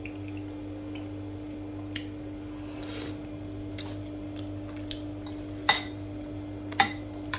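Metal spoon scraping and clinking against a ceramic bowl while scooping up a thick creamy casserole. There are two sharper clinks near the end, over a steady low hum.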